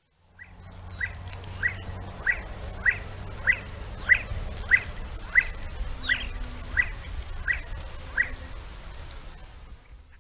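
A partridge calling: a steady series of about thirteen short, sharp notes, roughly one every two-thirds of a second, over a low background rumble.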